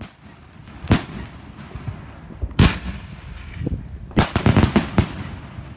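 Fireworks going off: single bangs about a second in and again a little later, then a quick run of about five bangs between four and five seconds in, with a crackling hiss between them.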